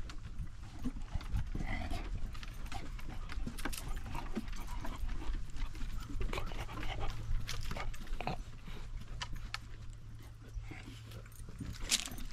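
Miniature shar pei panting close to its harness-mounted camera while walking, with its claws and paws clicking on wooden boardwalk planks.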